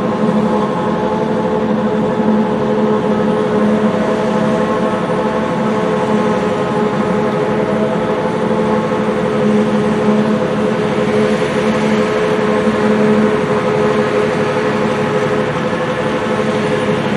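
Self-propelled forage harvester chopping standing corn for silage and blowing it out its spout into a truck trailer beside it: a steady, loud machine drone with a hum of several held tones.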